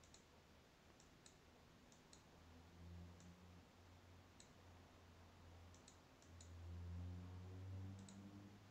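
Near silence broken by faint clicks, single and in quick pairs, as chess pieces are moved with a computer mouse in a fast online game. A faint low hum swells twice, around three seconds in and near the end.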